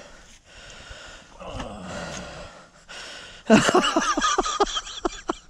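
A man's quick run of loud, breathy gasps starting about three and a half seconds in, after a stretch of softer noise; the reaction of someone who has just sunk waist-deep into cold mud.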